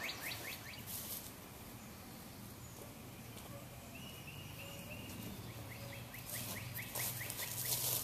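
Songbirds singing in spring woodland, faint: a quick run of short, repeated slurred notes at the start and again past the middle, with a few brief higher notes between.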